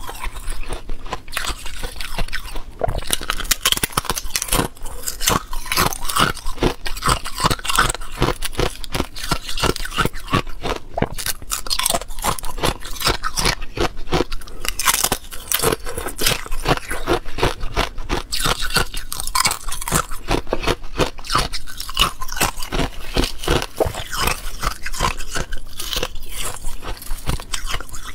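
Thin, brittle balloon ice being snapped into shards and bitten and chewed: a continuous fast stream of sharp crunches and crackles.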